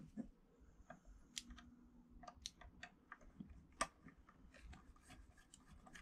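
Faint, scattered small clicks and taps from hands handling a Canon A1 film camera body and small tools on a workbench.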